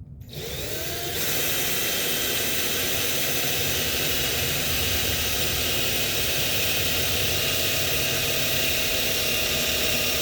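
Electric drill starting up with a rising whine, then running steadily under load as it bores a dowel hole down into wood.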